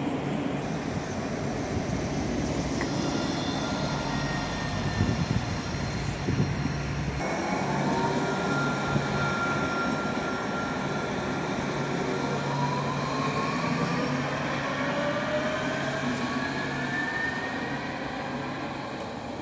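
Alstom Citadis electric tram running on street track with a steady low hum. From about seven seconds in, its traction motors give several whines that climb steadily in pitch together as it pulls away and accelerates.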